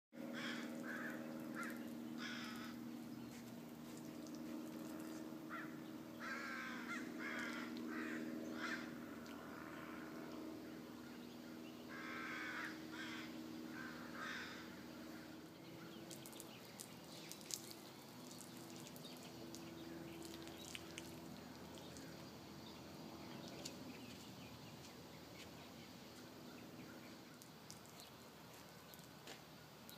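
Crows cawing in several short series of harsh calls, mostly in the first half, over a faint steady low hum.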